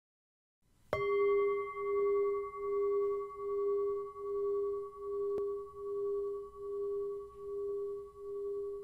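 Singing bowl struck once about a second in, ringing with one steady pitch and a slow, even wah-wah pulse about every 0.8 s, gently fading.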